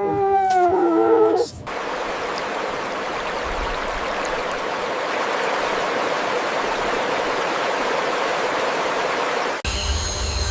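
An animal's wavering, whining call for the first second and a half, then a steady rushing of running water that stops abruptly near the end.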